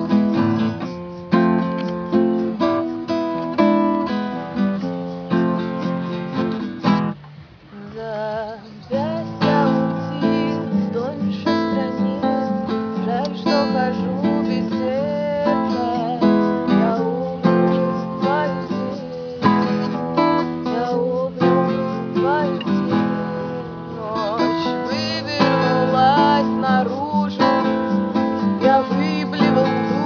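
Acoustic guitar strummed in a steady rhythm, with a brief break in the playing about a quarter of the way in; after it a voice sings a wavering melody over the chords.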